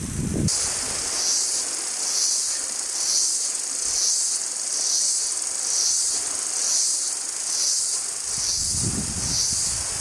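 Jungle insects buzzing in a shrill, high chorus that swells and fades in a steady pulse, about three swells every two seconds, over a steady wash from the nearby ocean. A deeper rumble rises near the end.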